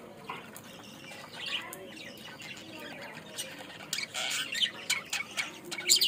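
A flock of caged budgerigars chattering with rapid chirps and squawks, growing busier and louder about halfway through, with a few sharp clicks near the end.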